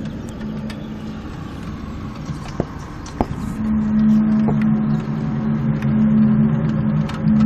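Low, steady droning hum on two pitches coming in through an open window, the unexplained recurring noise reported as a 'strange sky sound'. It fades, then swells back loudly about halfway through, with a couple of sharp clicks just before.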